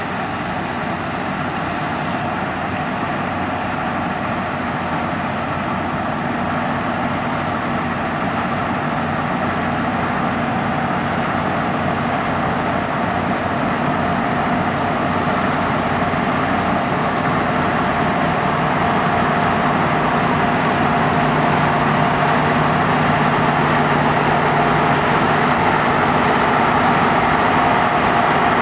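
Claas Tucano 320 combine harvester running under load as it cuts rapeseed: a steady machinery drone with a held whine, growing gradually louder as it draws closer.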